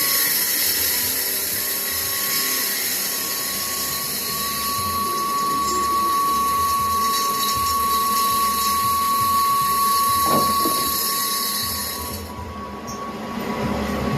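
Sawdust charcoal briquette cutting machine running with a steady high-pitched whine and hiss, which cuts off about twelve seconds in.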